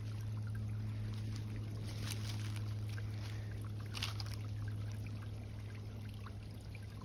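Water trickling in a small creek around a wire cage trap, over a steady low hum, with a few faint rustles about two and four seconds in.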